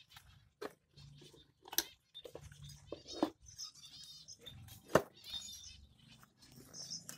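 Cage finches chirping in short, high calls, with several sharp knocks as the wooden nest box and cage are handled. The loudest knock comes about five seconds in.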